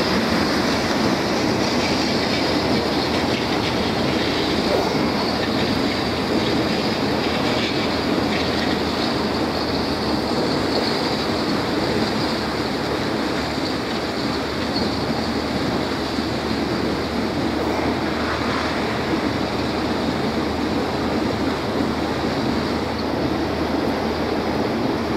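Small motorboat running underway: a steady rumble of engine and water rushing along the hull, unbroken throughout.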